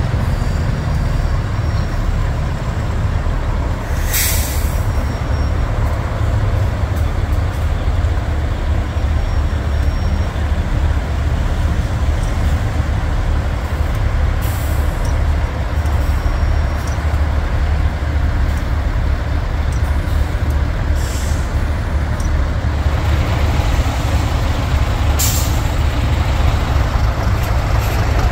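Heavy diesel truck engines running with a steady low rumble, broken by about four short air-brake hisses.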